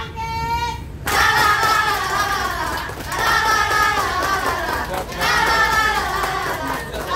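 A group of women chanting a yel-yel team cheer in unison, half sung and half shouted, in phrases of about two seconds with short breaks between them.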